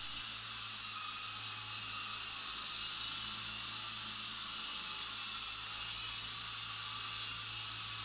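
Four-channel toy RC helicopter in flight: a steady electric-motor whir and rotor hiss with a faint low hum.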